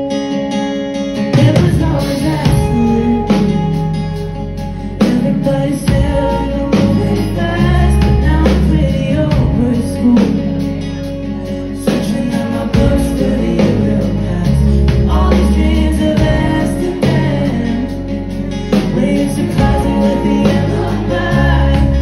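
Live band playing a song: electric and acoustic guitars over bass and a steady drum beat, with singing.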